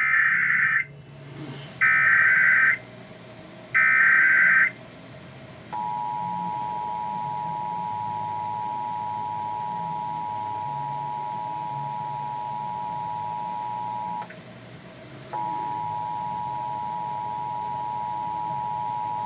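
Emergency Alert System SAME header: three short bursts of buzzy digital data tones about a second apart. These are followed by the steady two-tone EAS attention signal, which cuts out once for about a second midway. Together they mark the start of a Required Monthly Test.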